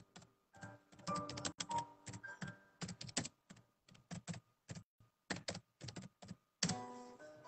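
Typing on a computer keyboard: an irregular run of soft key clicks, several a second, with faint music underneath.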